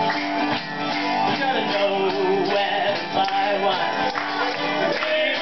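Live acoustic country-folk band playing: strummed acoustic guitars and mandolin with a wavering melody line over the chords.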